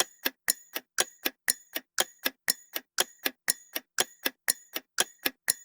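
Clock ticking sound effect counting down the guessing time, a steady tick-tock of sharp ticks, about four a second.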